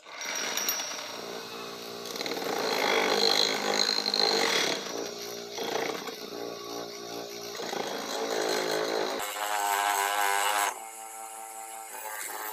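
Bench grinder running, with a red abrasive disc spinning on it. A rusty steel motorcycle brake plate is pressed against the disc, making a rough scrubbing noise that swells and fades over the motor hum. The sound starts abruptly and drops in level near the end.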